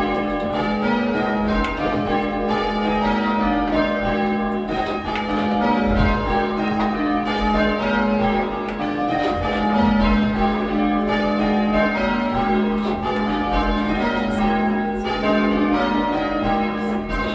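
A ring of six bells being rung in method ringing (change ringing), a steady unbroken run of bell strokes whose tones overlap and ring on into one another.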